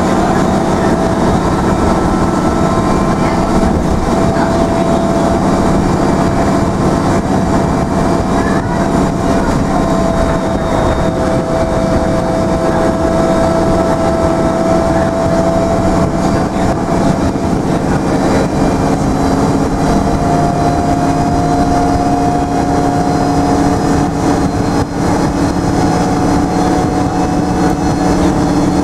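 Karosa B961 articulated city bus heard from inside the passenger compartment while driving: a steady engine and drivetrain drone with road and rattle noise. A whining tone in it climbs slowly in pitch over the second half.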